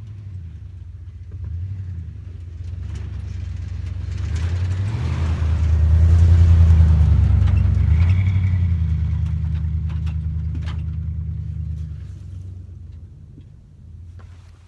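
Vehicle engine running, growing louder to a peak around the middle and then fading away. Its pitch shifts a few times along the way.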